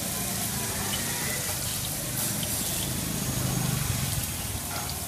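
Battered strips deep-frying in a wok of hot oil: a steady sizzling hiss of bubbling oil. A low rumble swells briefly about three and a half seconds in.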